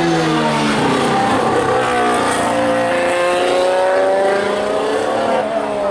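2019 Formula 1 car's 1.6-litre turbocharged V6 hybrid engine running at high revs past the grandstand, its pitch jumping at gear changes and then rising and falling slowly as the car goes by.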